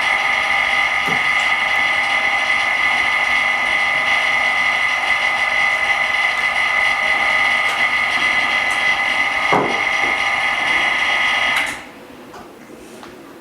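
A small electric motor on a phone-screen repair machine whines steadily at a high pitch, then cuts off suddenly near the end.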